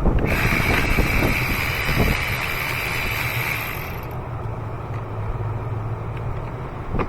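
Electric ratchet running with a steady high whine for about three and a half seconds, then stopping, over a steady low hum.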